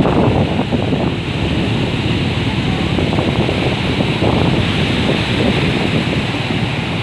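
Ocean surf rushing and breaking, a steady loud wash with slow surges, with wind buffeting the microphone.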